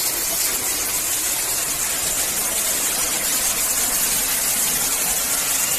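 Fountain jets splashing down into a pond: a steady rush of falling water.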